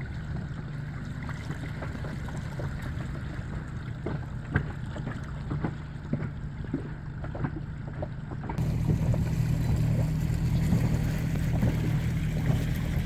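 A boat motor runs steadily as a low drone, with scattered small ticks over it. About two-thirds of the way through the drone gets louder.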